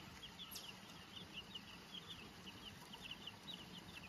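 A brood of baby chicks (Easter Eggers and yellow buffs) peeping: faint, rapid high cheeps, several a second, with one sharper high peep about half a second in.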